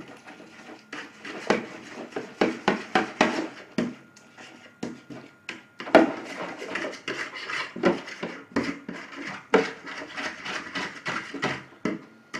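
A fork clicking and scraping against a container in rapid, irregular knocks. It is mashing silicone sealant into paraffin to thin it into a liquid.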